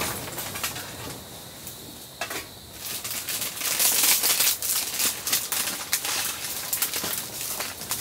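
Plastic instant-ramen seasoning packet crinkling and tearing open, a dense run of crackles strongest about three to five seconds in, after a few light clicks.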